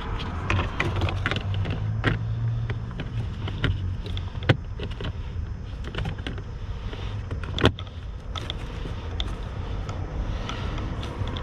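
Scattered clicks and knocks of parts being handled and fitted back in place after a cabin air filter change, with two sharper clicks about four and a half and seven and a half seconds in, over a steady low hum.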